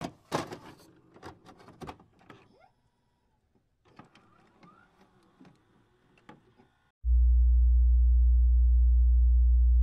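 Edited intro sound effects: a scatter of sharp clicks and swishes with a few short rising glides. About seven seconds in, a loud, steady, very deep synthetic tone starts and holds, a bass test tone.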